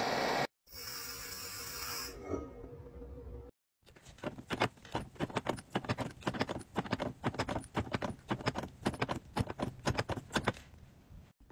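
Butane torch hissing briefly while heating a silver coin ring, then a hand-lever coin ring press being worked: a fast, uneven run of sharp metallic clicks and knocks, several a second, for about seven seconds, stopping near the end.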